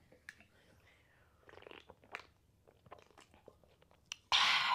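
Faint scattered clicks and light rustles as an aluminium drink can and food packaging are handled on a table. Near the end comes a short, louder hiss-like burst lasting about half a second.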